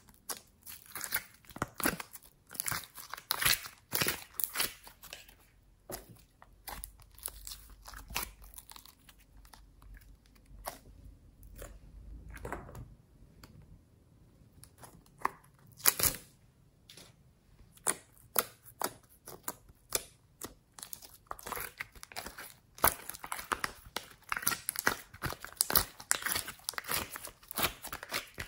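Glossy slime being poked, squished and kneaded by hand, giving trains of sticky crackling and popping clicks. The crackling thins out for several seconds in the middle, a single sharp snap stands out, and dense crackling returns as the mixed pink and white slime is squeezed near the end.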